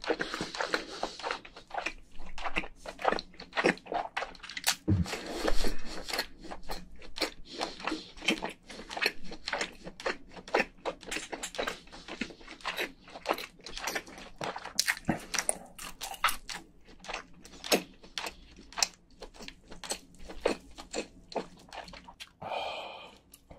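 A person chewing a mouthful of cooked giant crayfish meat: a dense, irregular run of sharp mouth clicks and smacks.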